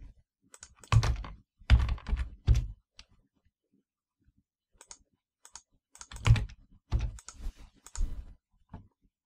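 Typing on a computer keyboard: two runs of keystrokes separated by a pause of about two seconds.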